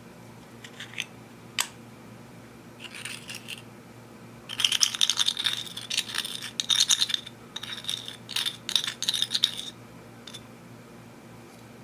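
Slime being pressed and squeezed by hand. A few single clicks come first, then a long run of dense, rapid crackling clicks from about four and a half seconds in until near the end.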